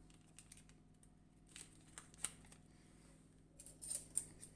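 Faint handling of a paper baking-powder sachet: a few light clicks and crinkles, with a short burst of rustling near the end.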